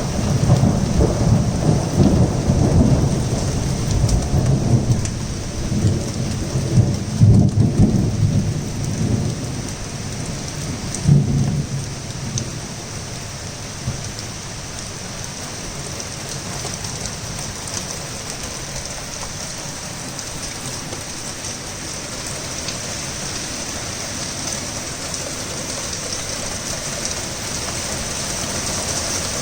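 Thunder rumbling low and long over torrential rain, swelling about a third of the way in with a sharper crack near the middle, then dying away to leave the steady hiss of heavy rain.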